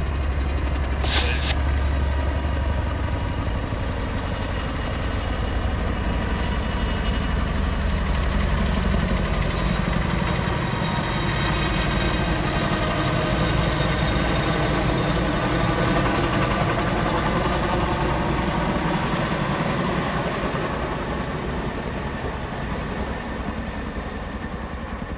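A large engine running steadily, its pitch wavering, then fading over the last few seconds.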